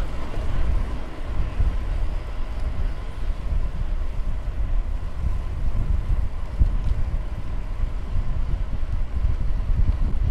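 Wind buffeting the microphone on a moving bicycle, a steady, gusty low rumble.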